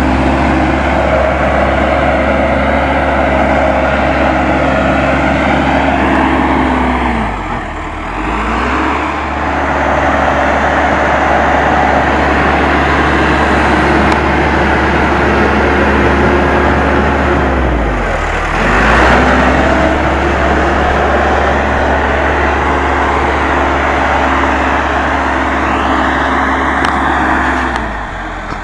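Case 580M backhoe loader's four-cylinder diesel engine running at working speed. Its pitch sags sharply and recovers three times, about ten seconds apart, as the engine briefly comes under load.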